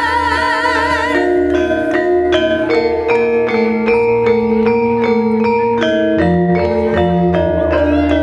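Javanese gamelan playing: a woman's held sung note with wide vibrato ends about a second in, then bronze metallophones carry on alone with a steady run of struck, ringing notes.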